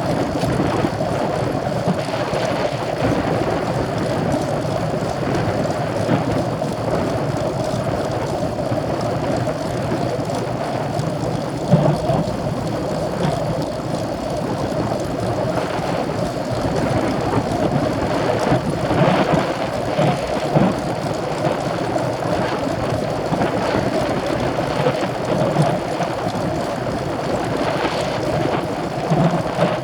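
Steady wind and rolling noise from riding a racing bicycle, with a few brief bumps about twelve seconds in and again around twenty seconds.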